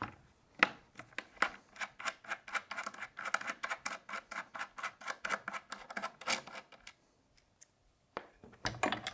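Small screws on an SSR63 A3 airsoft rifle being undone with a screwdriver: a quick, even run of small clicks, about five a second, that stops for a moment and resumes with some handling of the parts near the end.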